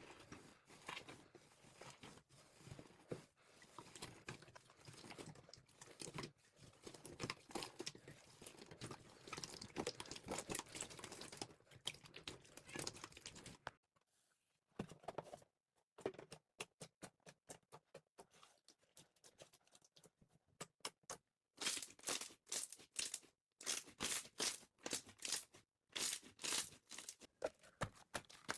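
Slime being squished and stretched by hand, giving dense crackling and clicking, then a short pause, then sharp separate pops, then loud bursts of crackling.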